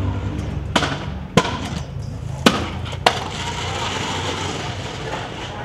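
Stunt scooter clacking against hard ground, four sharp impacts in about two and a half seconds over a steady low rumble.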